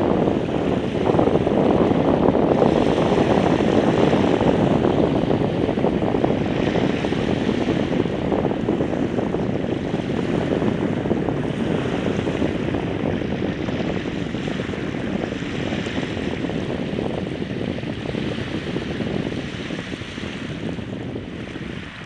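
Steady wind buffeting the microphone over small surf washing onto a flat sand beach at low tide, slowly easing off toward the end.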